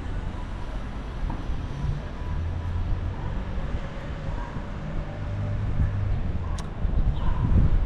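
Outdoor street ambience dominated by a low rumble that grows louder near the end, with one sharp click about six and a half seconds in.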